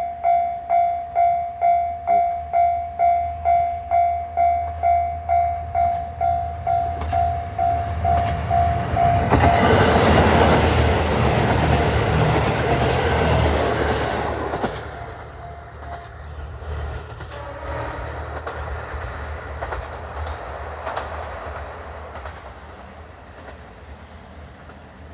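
Japanese level-crossing alarm ringing its kan-kan tone about twice a second. Then the Aso Boy! diesel limited express passes over the crossing, loudest for about five seconds near the middle, and the alarm stops. The train's noise then fades away as it recedes.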